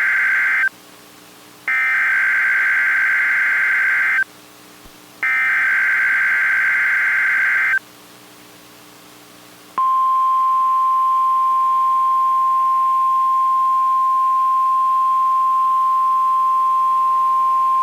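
NOAA Weather Radio SAME alert header: loud buzzing digital data bursts, each about two and a half seconds long with a short pause between, the first already under way at the start and two more after it. About ten seconds in, the steady 1050 Hz warning alarm tone begins and holds. Together they signal an alert about to be read, here a severe thunderstorm watch.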